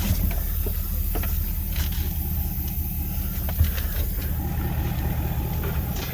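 A diesel engine drones steadily under load as the stuck truck is dragged out on a chain. Light clicks and knocks sit over it, with one sharper knock about halfway through.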